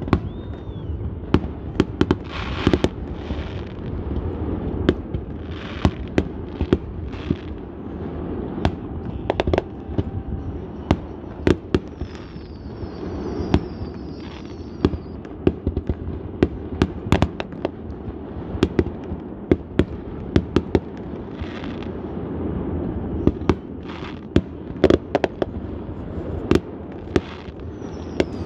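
Fireworks display: aerial shells bursting in quick, irregular succession, with many sharp bangs, some in close clusters, and short stretches of crackling between them.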